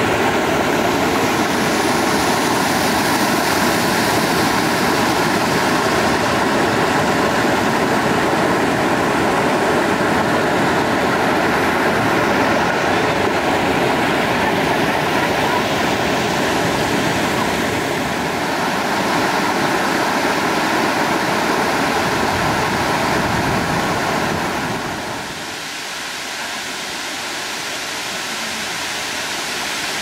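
Rushing water of a rocky river, a steady full noise of water pouring over and between boulders. About 25 seconds in it drops, quieter and thinner in the low end.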